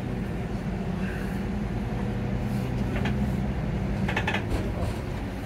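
Bus engine running steadily under way, heard from inside the cabin near the front: a low, even drone, with a few brief rattles around three and four seconds in.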